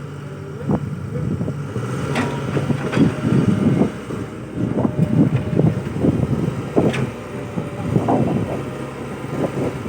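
Excavator's diesel engine running steadily, with repeated knocks and clunks from the machine at work.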